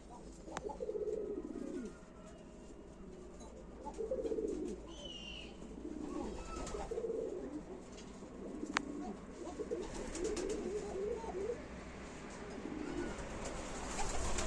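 Domestic pigeons cooing over and over in low rolling calls, with a short high squeak about five seconds in and a single sharp click near the middle.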